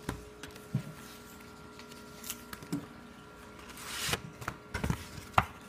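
Paper rustling and small clicks as an instruction booklet is handled and its pages are turned, with a louder rustle about four seconds in and a sharp click near the end, over a faint steady hum.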